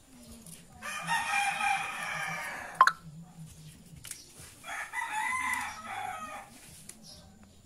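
A rooster crowing twice, each crow about two seconds long, with a short sharp click between them.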